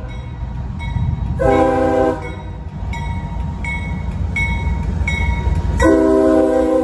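Diesel locomotive air horn blowing as the train approaches: one short blast about a second and a half in, then a long blast starting near the end. The horn sounds terrible. Under it runs the low rumble of the locomotive and train.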